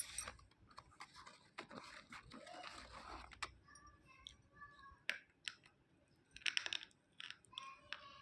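Intermittent crunching and crackling with sharp clicks, loudest in a crackly burst about six and a half seconds in, and brief squeaky tones about four seconds in and again near the end.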